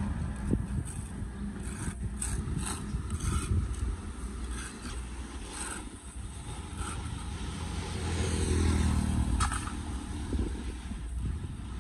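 Road traffic running steadily, with a motor vehicle passing and swelling loudest about eight to nine seconds in. Over it, scattered rustling and scraping of dry debris and a plastic garbage bag as a storm drain grate is cleared by hand.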